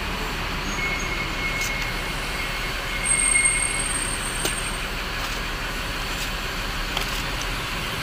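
Cardboard packaging being cut with a box cutter and torn open, over steady background noise. A thin high squeal starts about a second in and lasts a few seconds.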